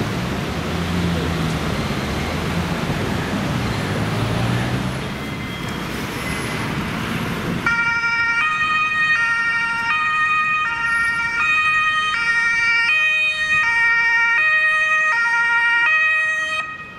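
Road traffic noise with a vehicle engine hum, then an ambulance's German two-tone siren (Martinshorn). The siren alternates between a high and a low tone about every two-thirds of a second and stops near the end.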